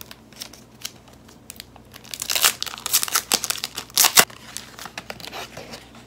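Clear plastic sleeve crinkling as a paperback book is pulled out of it. The rustles come in spurts, loudest about two seconds in and again around four seconds.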